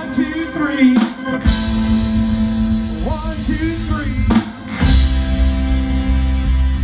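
A live rock band playing through a PA. A male singer sings two phrases over guitars, keyboards and a drum kit, with a few cymbal hits.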